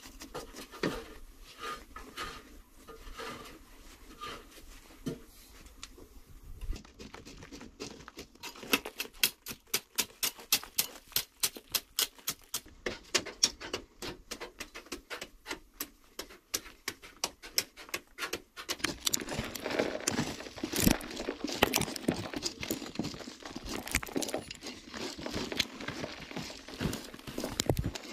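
A digging tool chopping and scraping into hard-packed clay earth: sharp strikes at about three a second, then denser scraping with loose soil falling.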